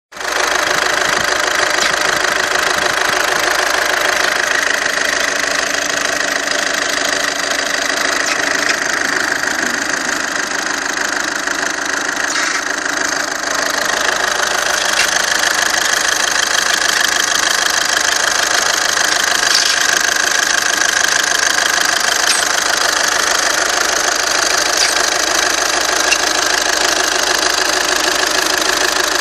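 Engine running steadily with an extraneous squeak, the unwanted noise being recorded to trace its cause.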